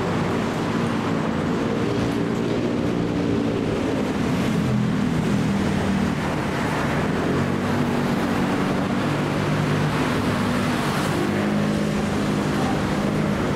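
Steady mechanical rumble with low humming tones that shift up and down in pitch every second or two: the running ambience of an elevated Bangkok BTS Skytrain station.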